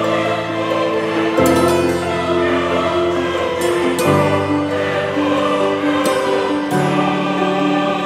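Background music: a choir-like ensemble singing slow, sustained chords, the chord changing every couple of seconds.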